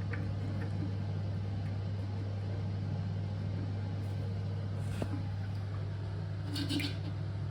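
Steady low hum, with one faint click about five seconds in.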